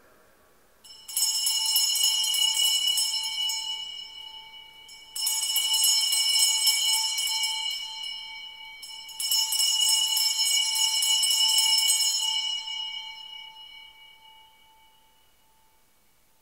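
Altar bells rung in three separate peals, each a few seconds of shaken, shimmering ringing. The last peal fades out slowly. They mark the elevation of the consecrated host after the words of consecration.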